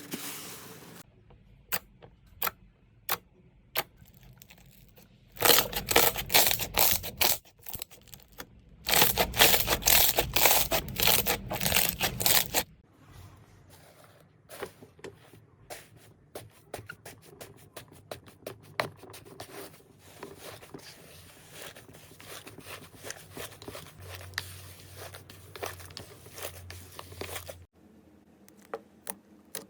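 Slime being squeezed and pressed by hand, giving sticky crackling and popping clicks. Scattered pops at first, then two loud, dense stretches of crackling about five and nine seconds in, followed by softer, quicker clicking that cuts off near the end.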